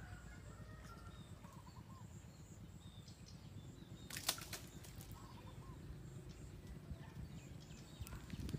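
Quiet pondside ambience: a steady low rumble, a few faint bird chirps, and one sharp click about four seconds in.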